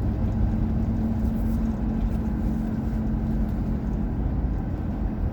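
Car driving, heard from inside the cabin: a steady low engine hum and road rumble.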